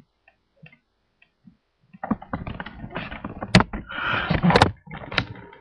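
Handling noise as the camera is picked up and moved: a few faint ticks, then, from about two seconds in, rustling and a string of knocks and clunks, the sharpest near the end.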